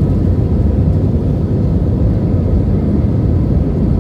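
Jet airliner cabin noise heard from a passenger seat on descent: a steady, deep rumble of the engines and rushing air, unchanging throughout.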